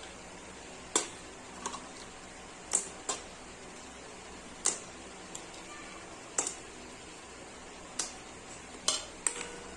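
About ten sharp, separate clicks and knocks, spaced unevenly, against an aluminium kadai of simmering milk as lumps of rock sugar (misri) are put in, over a faint steady hiss.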